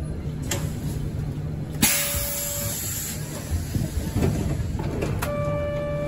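City bus cabin: the engine runs with a steady low rumble. About two seconds in, a sudden hiss starts together with a short steady beep. Near the end comes a longer steady electronic tone.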